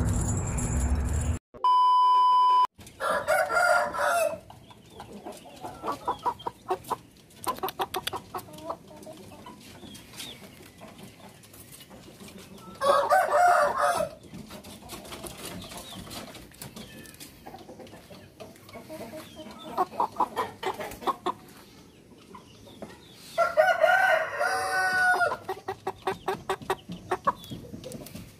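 A rooster crows three times, each crow lasting one to two seconds, with short runs of clucking between the crows. Near the start, intro music cuts off and a steady electronic beep sounds for about a second.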